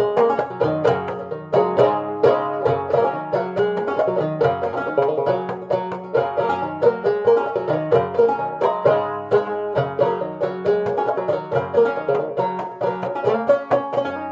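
Antique open-back banjo, built by J. B. Schall of Chicago around 1900, played clawhammer style: a steady stream of bright, quickly decaying plucked notes in a driving rhythm.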